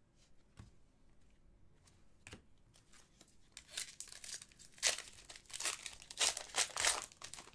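Hockey card pack wrapper crinkling and tearing as it is handled and opened, in a run of rustling bursts that starts about three and a half seconds in and lasts until near the end, after a few faint clicks.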